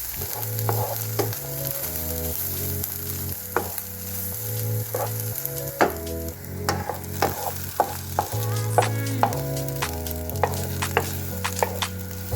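Background music with a beat: a bass line stepping between notes, chords and sharp percussion ticks, over a constant crackling hiss.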